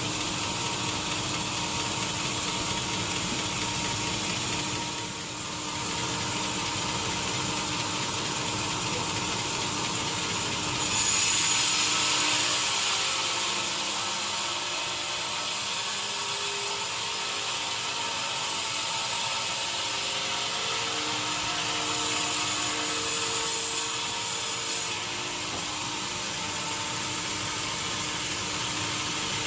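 Sawmill machinery running steadily with a mechanical clatter. It gets louder and hissier for a couple of seconds about a third of the way through, and again more faintly later, as wood is cut.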